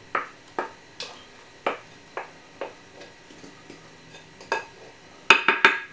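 A spoon scraping and knocking against a glass mixing bowl as thick sweet potato pudding batter is scraped out into a metal baking tin: a string of light, separate clicks, then a quick cluster of louder knocks near the end.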